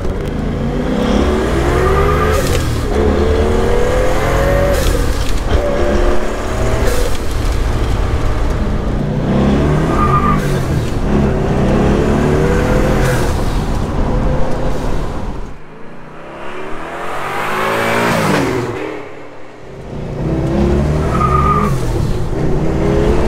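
Twin-turbocharged V8 of a 1957 Chevrolet Bel Air restomod on the road, its pitch rising and falling repeatedly as it accelerates and changes gear. Near the two-thirds mark it drops away for a few seconds, with one quick rise and fall, then picks up again.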